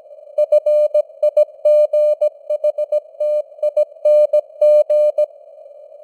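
Morse code (CW) sent at 17 words per minute as a keyed steady tone, short dits and longer dahs, over a narrow band of simulated radio static. The keying stops a little past five seconds in, leaving only the static hiss.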